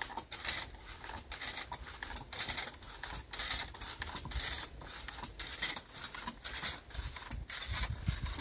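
Rhythmic scraping and rustling, roughly a stroke every second, as a ladder-type coconut-tree climbing device and its loops rub against the palm trunk while the climber comes down.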